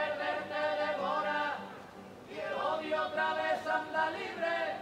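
A group of young men singing together in Spanish, two long held phrases with a short break about two seconds in.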